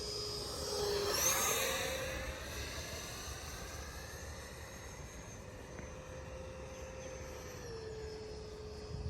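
Electric RC model airplane's motor whining as it passes close by, loudest about a second in, then running steadily and dropping a little in pitch as the throttle is eased near the end. Wind rumbles on the microphone throughout.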